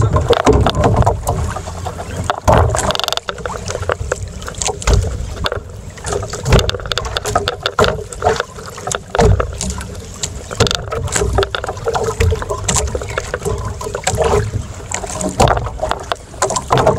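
Sea water slapping and splashing against the hull of a small boat, with wind on the microphone and scattered irregular knocks.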